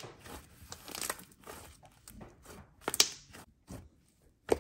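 Dry, slightly rippy icy slime squeezed and poked by hand, giving scattered crinkly crackles and small pops; the loudest pops come about three seconds in and just before the end.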